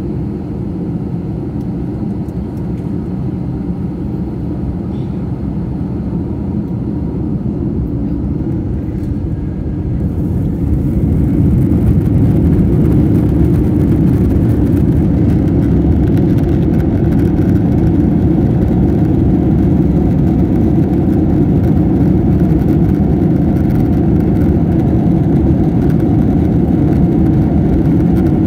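Jet airliner's engines heard from inside the cabin: a steady low engine noise while the plane rolls, then about ten seconds in the engines spool up to takeoff thrust and the noise grows louder and fuller as the plane accelerates down the runway.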